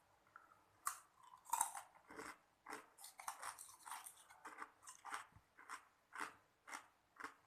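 Ice cubes crunching as they are bitten and chewed, starting about a second in and going on in a steady run of sharp crunches, about two a second.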